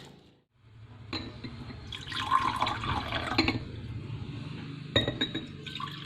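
Liquid splashing and pouring, with clinks of glass or crockery about five seconds in, over a steady low hum.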